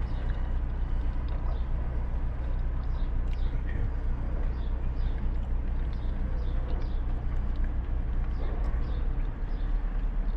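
Car engine idling, a steady low hum heard from inside the cabin, with faint soft clicks over it.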